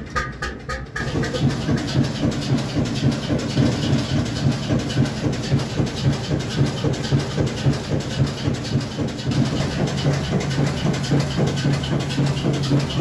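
1958 Brons two-cylinder slow-running diesel engine running steadily. About the first second is the even puffing of its exhaust at the stack. After that, heard close to the engine, comes a rhythmic mechanical clatter at an even beat over a steady low hum.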